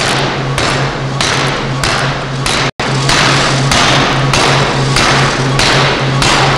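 Pneumatic forging hammer striking in a fast, even rhythm, about two heavy blows a second, over a steady low hum. There is a momentary break about two and a half seconds in, and the blows come slightly quicker after it.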